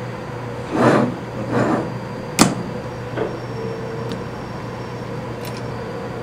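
Small metal lathe parts being handled on a wooden tabletop: two short scraping slides, then a sharp metallic click, then a few light taps.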